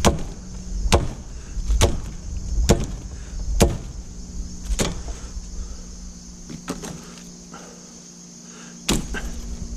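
A hand-swung brush-cutting blade chopping through bramble and vine stems. There are six sharp strokes about a second apart, then a few lighter cuts, and one more hard stroke near the end.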